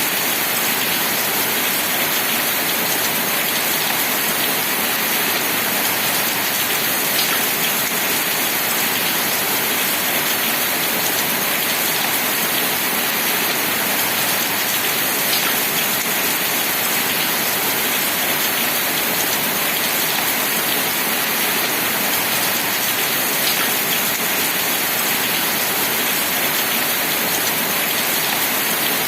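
Steady rain falling, an even hiss with the occasional louder drop.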